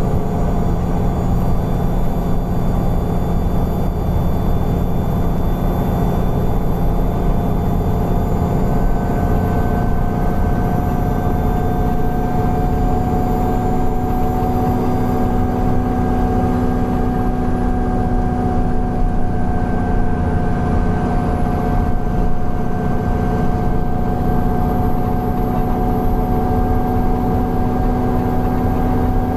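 Alexander Dennis Enviro 400 double-decker bus running steadily: a continuous engine and drivetrain drone with steady whining tones over it, their pitch rising slightly.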